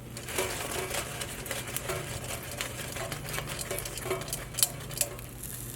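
Light, irregular clicks and knocks as turkey meatballs are turned over in a metal air fryer basket halfway through cooking, with a low steady hum underneath.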